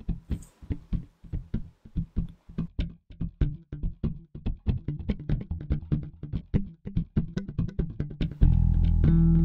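Background music of quickly plucked guitar notes; a little over eight seconds in, a louder, fuller section with bass comes in.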